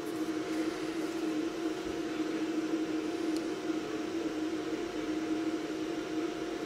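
A steady electrical or fan-like hum, one low tone with a fainter higher one, over an even hiss.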